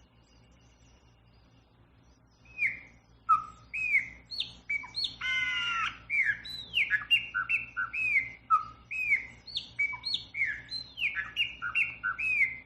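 A songbird singing a quick run of loud, clear whistled notes that slur downward, with one harsh buzzy note about halfway through. The song starts after about two seconds of quiet and cuts off abruptly at the end.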